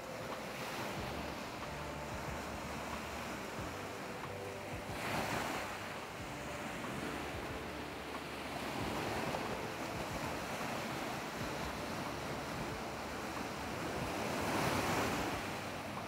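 Sea waves breaking and washing up a coarse sand beach among rocks: a steady hiss of surf that swells with a wave about five seconds in, again around nine seconds, and loudest near the end.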